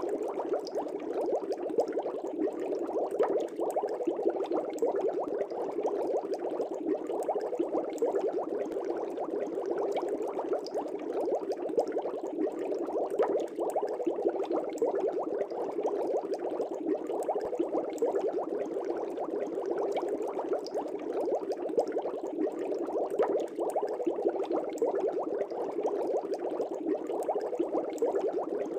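Air bubbles in an aquarium, bubbling steadily with many small pops.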